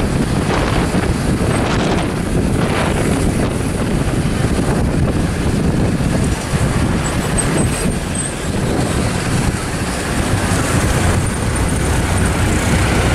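Steady rush of wind and road noise from a moving pickup truck, heard from its open bed.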